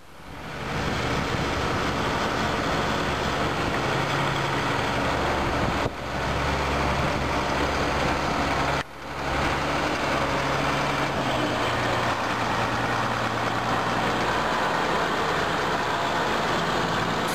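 Combine harvester's diesel engine running steadily close by, a constant low drone with machinery noise over it. The sound drops out briefly twice.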